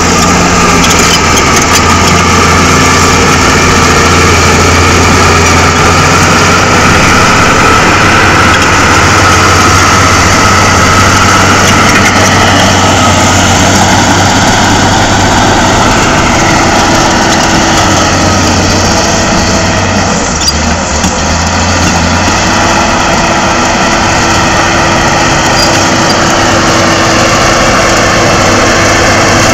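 Shantui SD16E bulldozer's diesel engine running hard with a steady low drone as the dozer pushes soil with its blade, easing off briefly about two-thirds of the way in.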